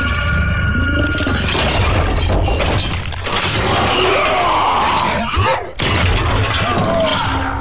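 Loud fight-scene soundtrack laid over stop-motion toy animation: robot-battle sound effects, crashes and growling vocal sounds, over music. It briefly drops out about five and a half seconds in.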